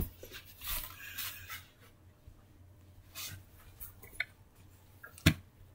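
Plush toys being handled and moved about on a rug: soft rustling and rubbing of fabric, with a sharp knock about five seconds in.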